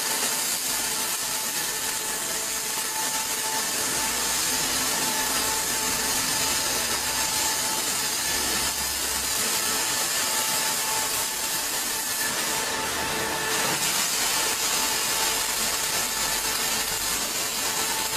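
Automatic MIG/MAG welding arc of a CNC welding machine, running as a steady loud hiss with a few faint steady tones underneath.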